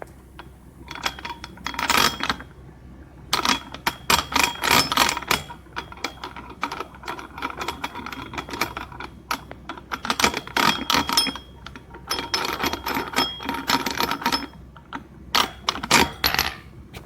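Metal dumbbell parts being handled: weight plates, handles and collars clinking and rattling against each other in bursts, with short pauses and some metallic ringing.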